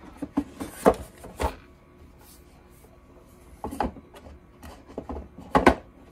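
A wooden rack of paint dropper bottles being pushed and fitted into a wooden crate: wood scraping against wood, with several sharp knocks, the last two close together near the end.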